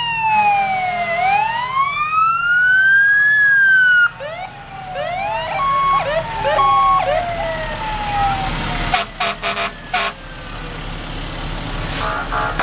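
Fire truck sirens sounding as the trucks drive past. A wail falls in pitch and then climbs again. After about four seconds it gives way to short rising yelps and a siren winding down twice, with a few sharp knocks and a steady low engine rumble underneath.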